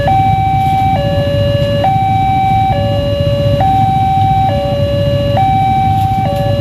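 Railway level-crossing warning alarm sounding a loud two-tone electronic signal, a lower and a higher tone swapping about every second, over a low rumble of idling motorcycles. It signals that the barrier is closed for an approaching train.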